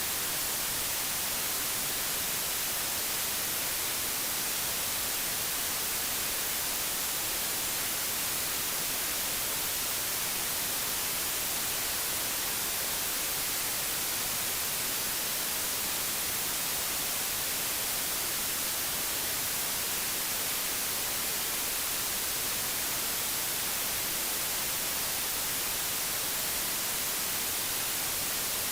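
Digitally generated white noise with a flat spectrum: a steady, even hiss that does not change.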